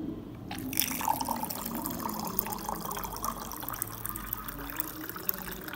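Water running from the push tap of a plastic water cooler into a drinking glass, filling it. It starts about half a second in.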